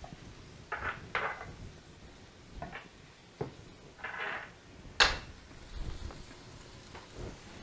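A skillet and cooking utensils being handled: a few scattered knocks and clinks and a short scrape, with the sharpest knock about five seconds in.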